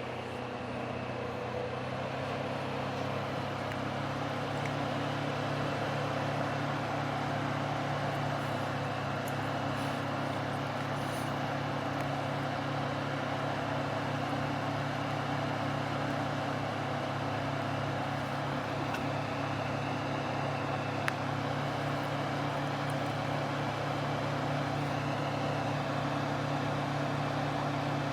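Small fan motor running steadily: a low, even hum under a rushing of air.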